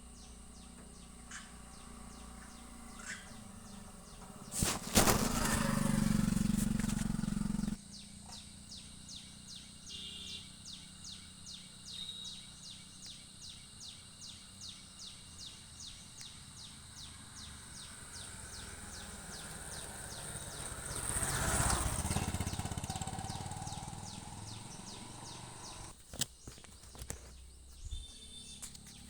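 Outdoor rural ambience with an insect chirping in a steady rhythm of about two to three chirps a second. A loud rush of noise comes about five seconds in and cuts off abruptly, and a second, softer swell of noise comes about two thirds of the way through.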